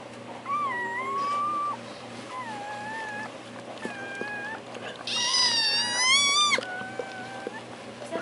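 Bernese Mountain Dog whining during whelping, a string of short, high, wavering cries, with a louder, longer cry rising in pitch about five seconds in.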